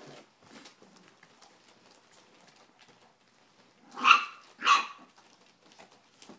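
A puppy barking twice in quick succession, two short high yappy barks about half a second apart, around four seconds in.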